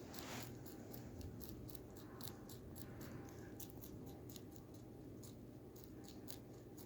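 Mini lop rabbit chewing fresh cilantro: quick, crisp crunches a few times a second, irregular, fading out near the end.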